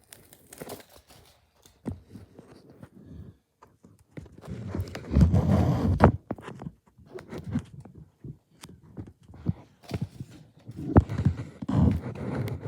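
Irregular thumps, knocks and scrapes, loudest in a cluster about five seconds in.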